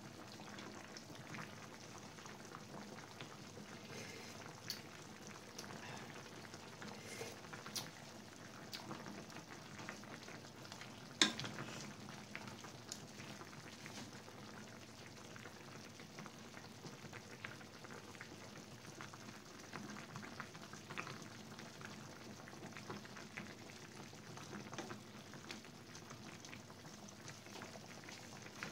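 Sinigang sa miso broth simmering in a stainless steel pan: a faint, steady bubbling with small pops and crackles, and one sharp click about eleven seconds in.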